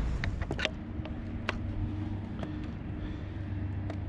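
Scattered light clicks and knocks of a flathead and fishing gear being handled on a kayak as the fish is laid on a measuring board, over a steady low hum.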